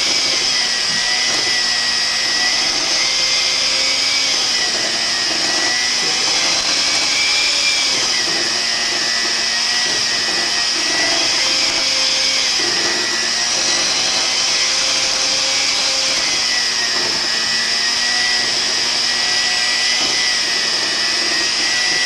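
Electric hand mixer running steadily at medium speed, its beaters whipping a chocolate butter cream; the motor's whine wavers slightly in pitch every few seconds.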